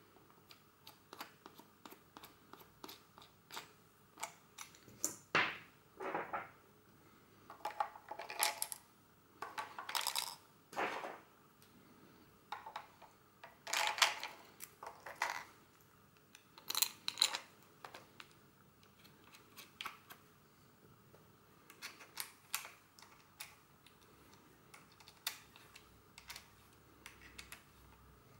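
Irregular clicks, rattles and short scrapes of AA batteries and the battery holder being handled and fitted into the pistol grip of a Canon 814XL Electronic Super 8 camera.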